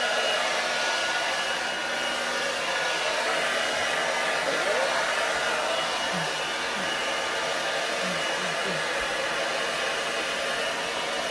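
Handheld hair dryer blowing at a steady, unchanging level.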